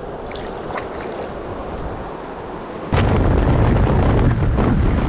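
Steady river water running, then an abrupt cut about three seconds in to the loud low rumble of a truck driving on a gravel road, with wind buffeting the microphone.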